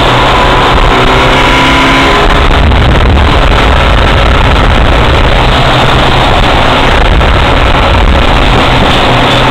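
Car engine and tyre and wind noise heard from inside a car cruising at highway speed, loud and steady. An engine tone stands out for the first two seconds, rising slightly in pitch.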